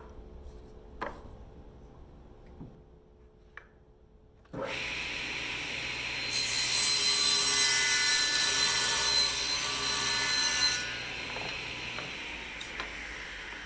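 A few light clacks of small wood pieces set on a table saw's cast-iron top. About four and a half seconds in the table saw starts. From about six seconds it cross-cuts a glued-up panel of hardwood strips for some four seconds, then it is switched off and the blade winds down slowly.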